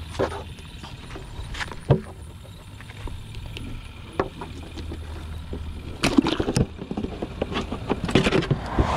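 Knocks and thumps from a white plastic cooler being handled as a snakehead is lowered into it on a lip-grip tool, with a burst of rapid clattering near the end as the lid is worked shut.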